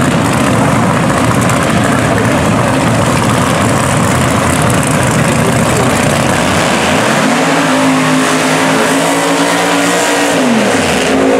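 A drag car's engine running loud at the starting line. About seven seconds in, it revs up to a high steady pitch, holds for about three seconds during a burnout, then drops off near the end.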